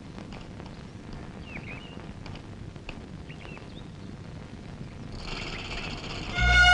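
Quiet film-soundtrack ambience with a few faint, short chirping calls in the first half. Background music with sustained high tones fades in later and swells sharply just before the end.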